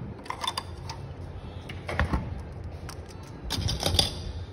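Handling noises from unboxing: groups of clicks and rustles about half a second in and around two seconds, then a longer, louder cluster near the end, over a steady low hum.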